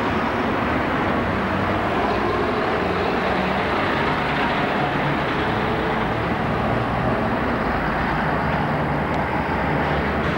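Steady street traffic noise, with a diesel double-decker bus running close by among passing cars.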